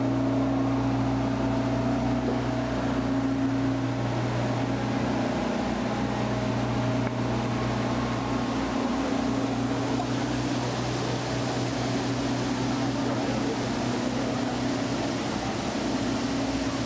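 The steady low hum of a ride submarine's engine running, over a wash of water noise.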